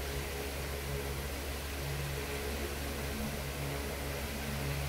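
Steady mechanical hum and hiss, with a low tone that swells and fades roughly once a second.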